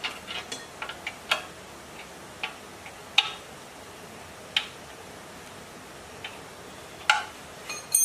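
Irregular sharp metallic clicks and clinks of hand tools and parts against a ZS1115 single-cylinder diesel engine during reassembly. Several come close together in the first second and a half, then fewer and more spread out.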